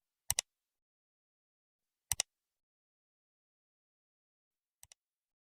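Three sharp double clicks about two seconds apart, the last one fainter, with dead silence between them.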